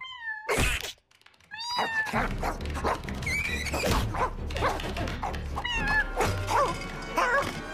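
Cartoon slapstick soundtrack: short squeaky animal cries that fall in pitch and a thud just after half a second in. There is a brief gap of near silence about a second in, then background music with more little squeaks.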